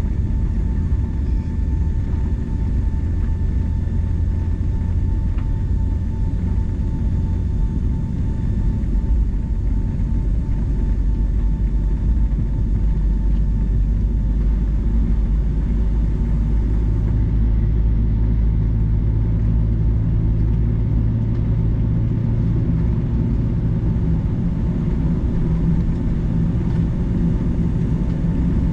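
Cabin noise inside a Boeing 757-200 airliner: a steady low rumble from the jet engines and airframe, with a faint steady whine above it. About two-thirds of the way through, the rumble shifts slightly in pitch.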